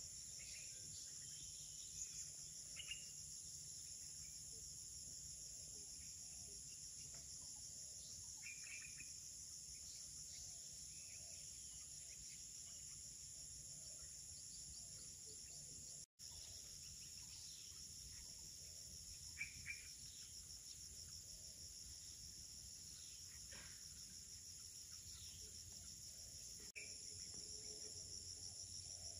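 Forest night-insect chorus: a steady, high-pitched, pulsing drone, with a few short bird chirps scattered through it. The loudest chirps come as a pair about two-thirds of the way in.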